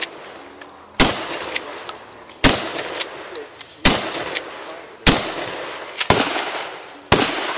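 Shotgun firing six shots about one to one and a half seconds apart, each shot followed by a ringing echo. Fainter clicks fall between the shots.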